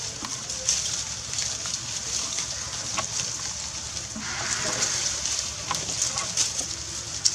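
Scattered crackling and rustling of dry leaf litter over a steady high hiss, with a sharp crackle near the end.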